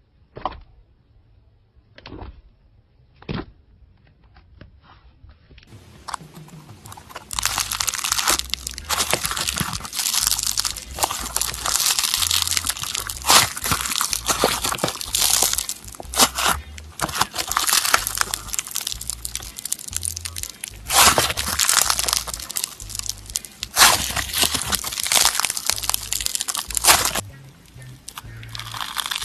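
Crunchy slime being squeezed and pressed by hand: a few separate pops at first, then about six seconds in a dense run of crackling and popping that eases off briefly near the end.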